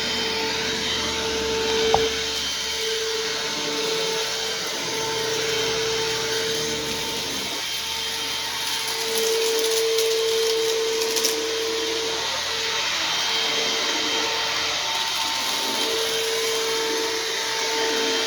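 Bissell CleanView Helix bagless upright vacuum running: a steady motor whine over the rush of suction, just after starting up. A single click comes about two seconds in.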